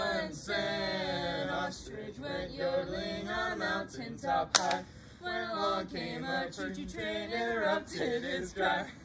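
A small group of mixed voices singing a cappella, without accompaniment: the nonsense yodel chorus of a silly camp song, 'ole-ya-ka-kia, ole-ya-ku-ku-ku-ku'. There is a single sharp click about four and a half seconds in.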